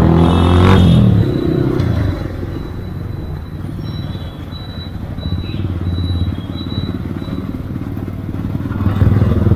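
Yamaha R15 V2's 150 cc single-cylinder engine running as the bike rides through traffic. It is loudest in the first second or so, eases to a steadier, quieter run after about two seconds, and picks up again near the end.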